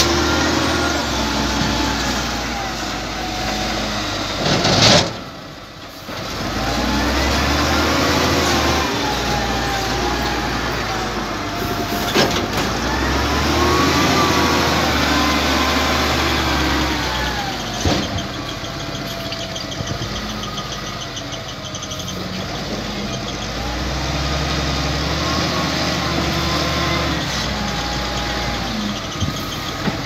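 XCMG LW300KN wheel loader's diesel engine working, its pitch rising and falling three times as it revs up and eases off, over a steady low hum. A sharp knock comes about five seconds in.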